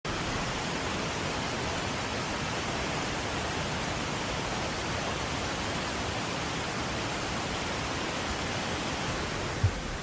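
Waterfall rushing, a steady, even noise of falling water, with one brief low thump near the end.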